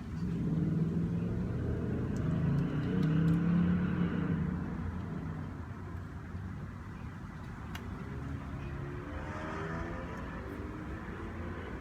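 Motor vehicle engine passing by, growing louder to a peak about three to four seconds in and then fading; a second vehicle approaches near the end, its pitch rising. A few faint clicks sound in between.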